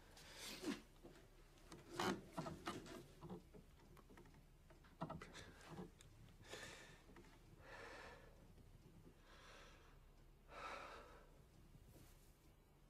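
Faint, unsteady breathing of a man crying: soft clicks, sniffs and sharp intakes of breath, then several long shaky exhales about a second and a half apart.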